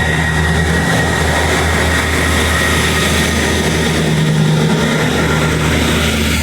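Diesel train engines running loud and steady as a train moves through the station, a deep drone under broad rumbling noise.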